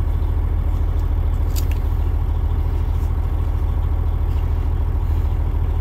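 Freightliner Coronado Glider's diesel engine idling steadily, a low even rumble heard from inside the cab, with a couple of faint clicks.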